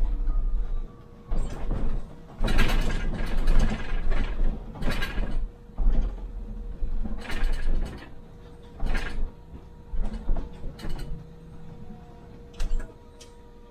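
Inside a MAN Lion's City hybrid city bus: a run of irregular knocks and rattles, some with a low rumble, about one a second, over a faint steady tone.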